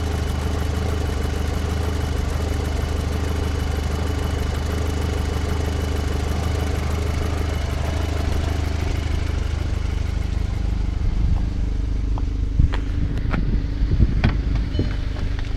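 2006 VW Passat's turbocharged FSI engine idling steadily at operating temperature, with no chatter: the noise after a head gasket job is gone now that the oil filter cartridge has been changed. A few light clicks and knocks come in over the last few seconds.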